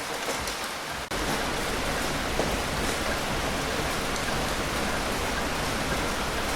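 Steady rain falling. About a second in, the sound briefly drops out and comes back slightly louder and fuller, with more low rumble.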